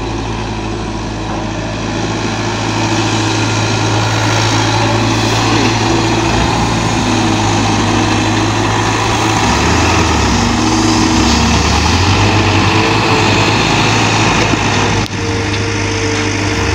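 Diesel engines of a Caterpillar E120B excavator and a small loaded dump truck running steadily. The engine tone shifts partway through, and there is a short dip near the end.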